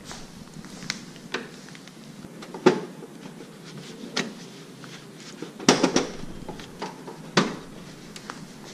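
Hard plastic clicks and knocks from a 2016–2017 Toyota Tacoma's plastic front grille and its clips being pried and pulled loose by hand. There are about half a dozen separate clicks, a sharper knock about a third of the way in, and a quick cluster a little past halfway.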